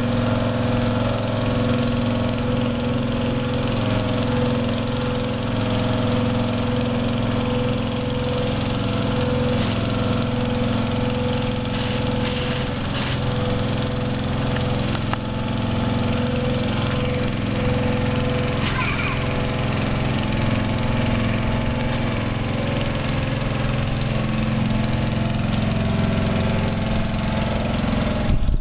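Small engine running steadily at a constant speed, powering the hydraulics of a mobile water tower as its tank is raised on the lifting frame. A few light clicks sound about midway.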